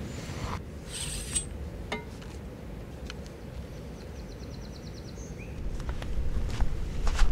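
Outdoor ambience with a few small clicks and clinks, a brief high rapid trill, and a low rumble that grows louder near the end.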